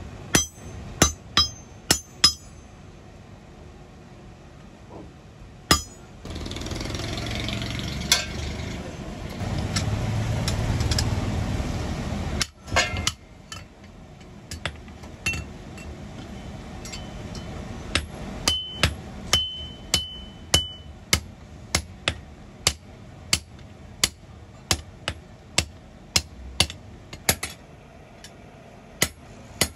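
Hand hammer striking a kasi (hoe) head held in tongs on an anvil, sharp metal-on-metal blows: a few quick ones at the start, then a steady run of about one and a half blows a second in the second half. For several seconds in between, a steady rushing noise stands out.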